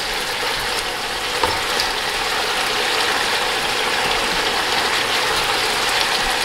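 Chicken stock steadily sizzling and bubbling around beef short ribs in a large pot as the liquid cooks down, with a few light clinks of the utensil turning the meat.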